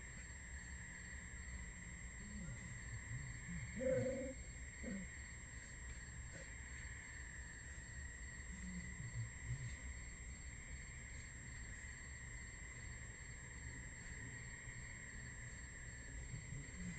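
Crickets chirping steadily, with a few brief low sounds from the feeding red wolf pups and a short whine about four seconds in.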